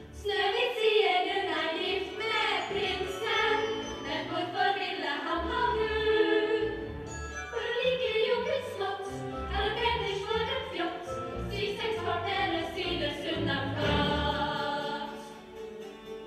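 A group of women singing a song together with musical accompaniment.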